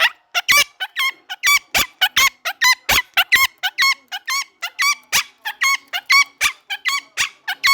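Pet parrot screaming: a fast, unbroken string of short, squeaky calls, about four a second.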